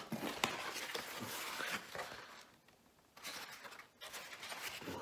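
Cardboard pizza box being handled: rustling and scraping with small clicks as it is slid and picked up, with a brief near-silent pause midway.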